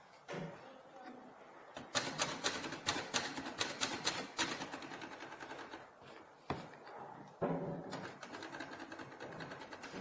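Manual typewriter being typed on fast: rapid clattering keystrokes that start about two seconds in, break off briefly a little past the middle, then carry on.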